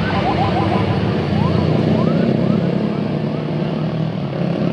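Tour bus engine running with street noise, and faint short rising chirps repeating about twice a second.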